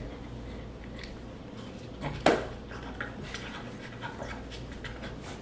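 Steady low room hum with a single sharp knock a little over two seconds in and a few faint small sounds around it.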